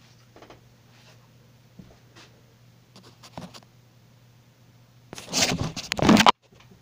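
Faint scattered taps and scrapes over a steady low hum, then a loud rustling scrape for about a second near the end that cuts off suddenly.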